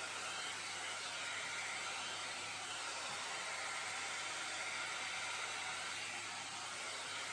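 Jomarto hot-air volumizer brush (a hair dryer and round brush in one) blowing steadily as it dries hair, a constant rush of air over a faint motor hum.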